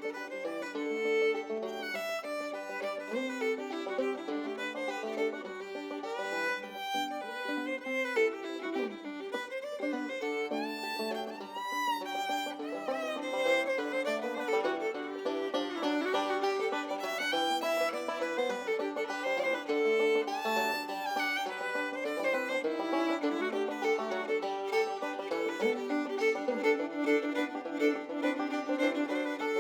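Background music led by a fiddle, with shifting melodic lines.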